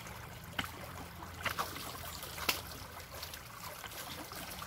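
Shallow creek water trickling and splashing around people wading and working with their hands in it, with three short, sharp splashes spread through.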